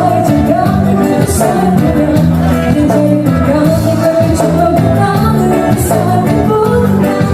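A live band playing a song: a singer's melody over a steady bass line and drums.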